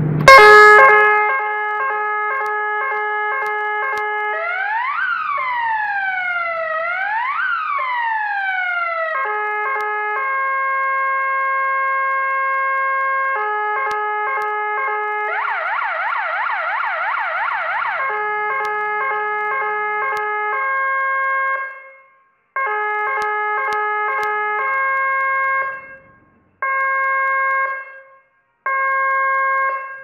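SAT 5T/230 multi-tone electronic alarm siren sounding and changing between its tone patterns. It gives a steady tone, two slow rising-and-falling wails, a choppy pulsing tone and a fast warble. Near the end it cuts out and restarts several times.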